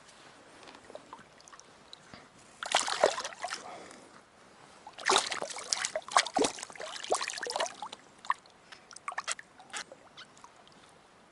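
A hooked yamame trout splashing at the stream surface as it is brought in, in two bouts of irregular splashing, followed by a few drips.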